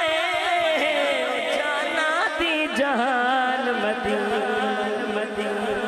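A male voice singing a long, wavering, ornamented phrase of a Punjabi naat into a microphone, the pitch gliding up and down without clear words, with a steady low held note beneath it in the second half.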